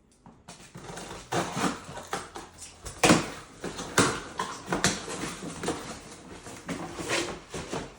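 Shoe packaging being handled: paper and cardboard rustling and crinkling, with sharp knocks of a shoebox about 3 and 4 seconds in.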